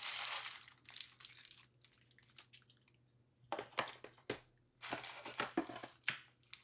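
Packaging being handled as a power adapter is unpacked: crinkling and rustling with short clicks and knocks. It comes in spells: a stretch of rustling at the start, scattered small sounds, then two busier bursts of handling in the second half.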